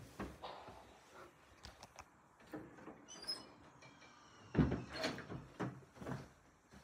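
Quiet door handling: a few soft clicks and knocks, a faint high squeak about three seconds in, and a louder thump about halfway through.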